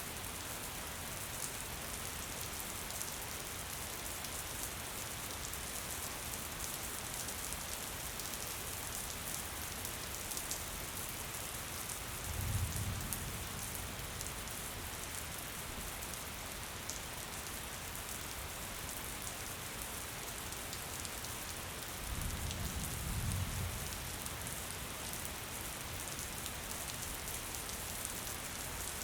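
Gentle rain falling steadily on surfaces: a constant hiss with fine patter of drops. Twice, about twelve seconds in and again about twenty-two seconds in, a low rumble swells for a couple of seconds.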